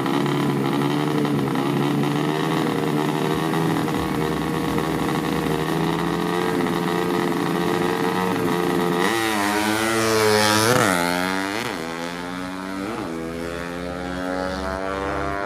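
Drag-racing motorcycle engine running steadily, then from about nine seconds in revved up and down in several quick blips.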